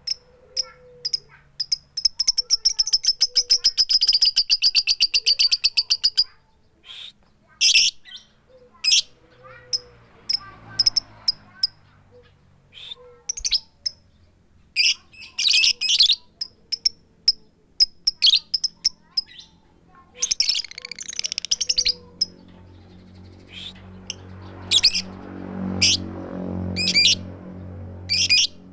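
Female lovebird calling with sharp, high 'tik tik' chirps and 'keyok' calls, repeated with short gaps, with a fast run of chirps lasting several seconds near the start; no long 'ngekek' trill.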